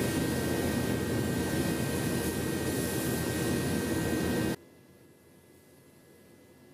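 Astro Pneumatic Euro Pro HE spray gun spraying automotive base coat at about 25 PSI: a steady rush of air hiss that cuts off suddenly about four and a half seconds in.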